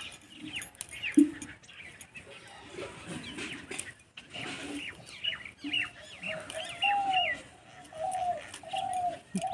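Small birds chirping, with another bird calling a run of short, repeated low notes through the second half. Leaves rustle and click faintly as chillies are picked from the plant by hand.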